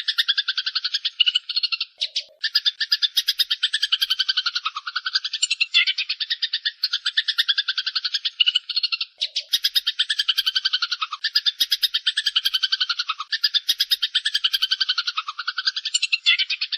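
Eurasian tree sparrows (burung gereja) giving the harsh, fast chattering calls of birds fighting. The rapid churring runs on almost without a break, pausing briefly about two seconds in and again about nine seconds in.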